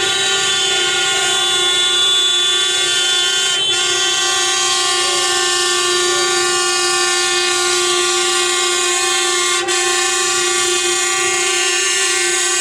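Vehicle horns held in one long, unbroken steady blast as the coach and scooters of the procession pass.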